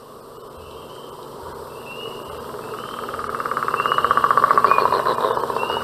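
Frog chorus: a short rising chirp repeating about every half second over a fast pulsing trill that swells and grows louder toward the middle.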